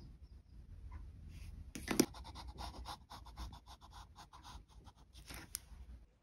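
Pencil and graphite stick scratching on drawing paper in quick test strokes, with one sharp tap about two seconds in.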